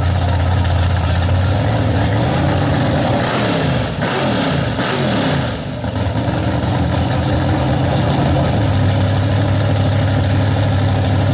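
Drag-racing pickup truck engines idling loudly at the starting line. Their note slides up and down in pitch for a few seconds near the middle, then settles back into a steady idle.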